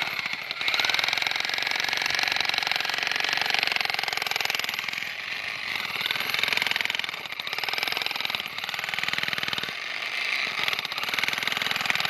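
Corded electric demolition hammer running continuously, its chisel bit pounding into hard rocky ground. A very fast hammering rattle with a motor whine, easing off briefly a couple of times.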